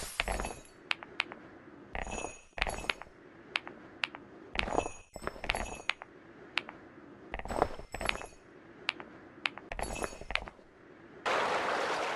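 Mechanical keyboard keys with novelty keycaps being pressed one at a time in an irregular rhythm, each stroke a sharp clack, some leaving a brief high ringing ping. Near the end a denser, louder clatter of noise lasts about a second.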